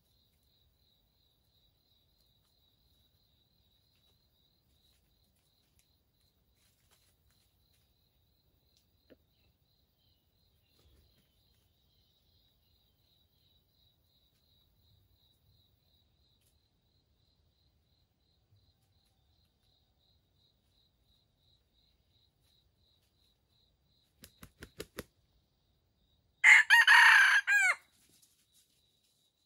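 A red junglefowl (wild chicken) rooster flaps its wings in four quick beats, then gives a single short, loud crow near the end. A faint, steady insect trill runs underneath.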